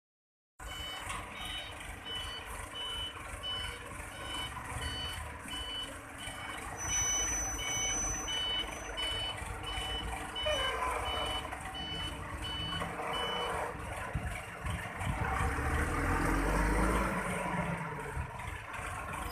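Reversing alarm of a SANY motor grader beeping at a steady pace, about three beeps every two seconds, over the running diesel engine. The beeping stops past the middle, and the engine grows louder near the end.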